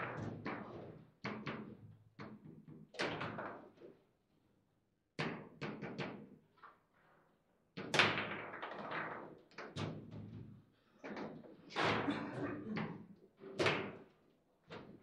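Table football (foosball) table in fast play: quick, irregular runs of sharp knocks and clacks as the ball is struck by the player figures and rebounds off the table, with short lulls about four and seven seconds in.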